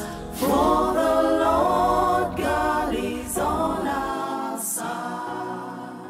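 Gospel song with a group of voices singing, fading out over the last couple of seconds.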